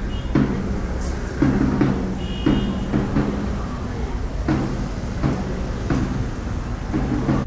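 Drum beats, roughly one to two a second, each a low pitched thud, over a steady low rumble of street noise.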